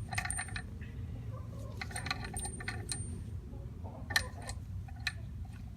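Metal bolts and hand tools being handled, giving clusters of light metallic clinks and rattles with a short ring, over a steady low hum.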